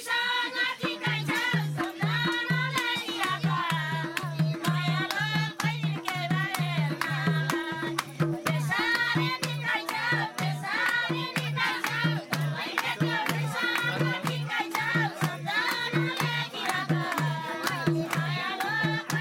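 Nepali dohori folk song: women singing together with hand-clapping, over a steady beat of a madal barrel drum.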